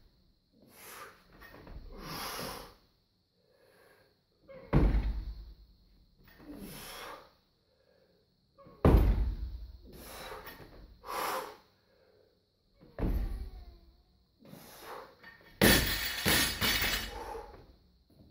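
Loaded barbell with rubber-coated plates coming down hard on the floor during snatch reps: heavy thuds about four times, the last a drop with the plates clattering and rattling for a couple of seconds. The lifter's forceful breaths are heard between the lifts.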